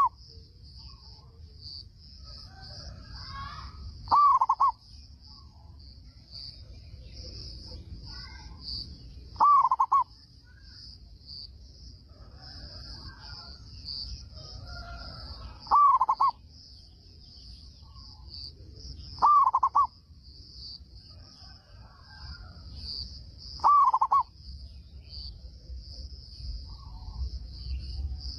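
Zebra dove cooing: five loud, short rolling coos spaced four to six seconds apart, with fainter calls between them. A steady high insect trill runs underneath.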